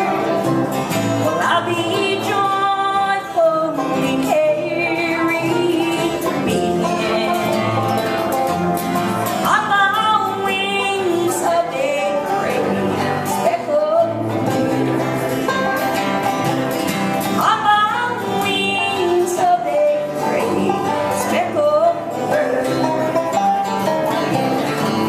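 Live acoustic bluegrass-style country band playing, with banjo and guitar picking and notes that slide in pitch.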